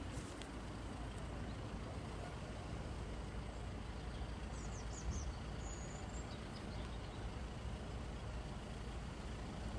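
Steady low rumble of road traffic and idling vehicles, with a few faint high bird chirps about halfway through.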